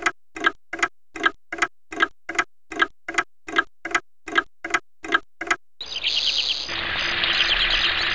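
A clock ticking steadily, about two and a half ticks a second. About six seconds in, a loud rapid ringing sets in: the alarm going off.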